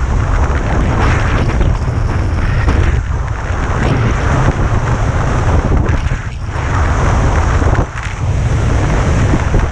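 Heavy wind buffeting on the camera microphone of a skier moving fast downhill, over the hiss and scrape of skis carving on packed snow. The rush dips briefly a few times, around the turns.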